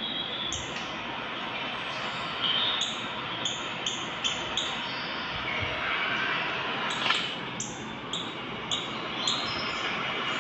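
Nature-video audio from a phone's speaker: a steady rushing noise with short high-pitched chirps repeating about every half-second.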